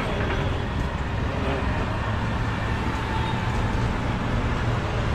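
Steady road traffic noise with a low, even hum from passing and idling vehicles.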